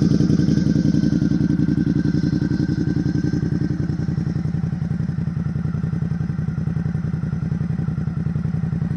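Suzuki V-Strom 650's V-twin engine idling steadily through an aftermarket WR sport slip-on muffler, an even run of rapid exhaust pulses.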